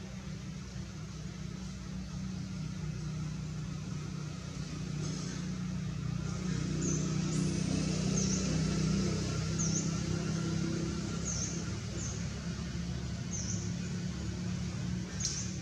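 A steady low engine hum that swells a little in the middle, with a small bird's short high chirp repeating about every second and a half from a little before halfway.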